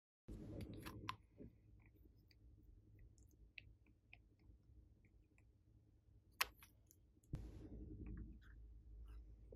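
Faint, scattered sticky clicks of wet slime being worked by hand, with a sharper click a little past six seconds in and a soft low rustle from about seven seconds.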